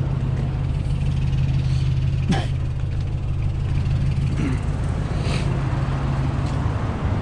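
A 2008 Nissan Titan's 5.6-litre V8 idling steadily, with one short sharp knock about two seconds in.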